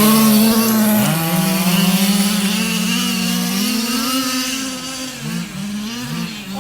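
Radio-controlled car motor running hard, its pitch rising and falling with the throttle and growing fainter; near the end a quick run of throttle blips.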